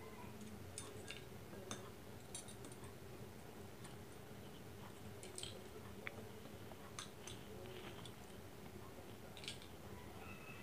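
Faint scattered clicks and taps of chicken eggs being cracked on the rim of a china bowl and the broken shells set into another bowl, over a low steady hum.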